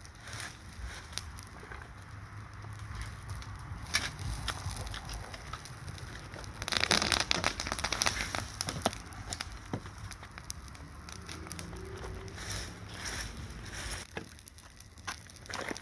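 Bonfire crackling, with many sharp pops and snaps over a low steady rumble; the crackling grows denser and louder for a couple of seconds about seven seconds in.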